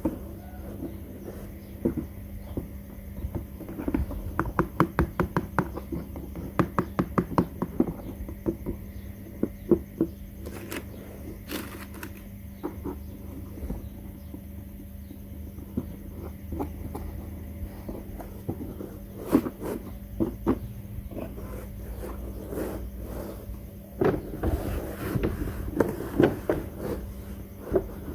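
Small plastic toy kitchen pieces being handled and unpacked: scattered taps, clicks and scrapes, with a run of quick clicks about four seconds in and busier handling near the end, over a faint steady hum.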